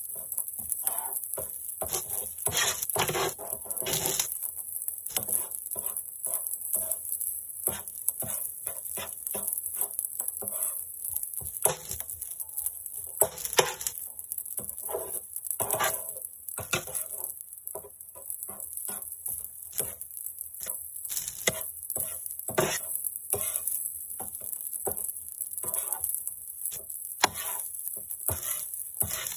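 Metal spatula scraping and tapping on a flat electric griddle while fried rice is chopped and turned, in irregular clinks and scrapes over a steady high hiss.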